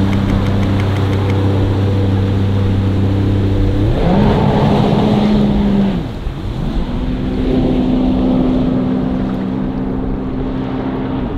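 Sea-Doo RXP-X 300 jet ski's supercharged three-cylinder engine running at a steady pitch, then revving up about four seconds in as the craft accelerates. After a short dip the engine climbs again and holds a higher, steady note.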